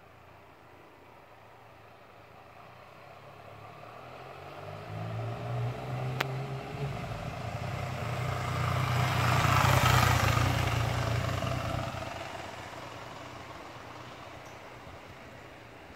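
A motor vehicle passing by. Its engine hum and road noise swell to loudest about ten seconds in, then fade away. There is a single sharp click about six seconds in.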